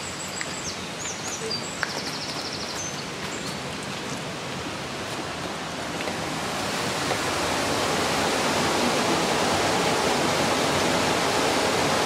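Steady rush of flowing water, growing louder from about halfway through.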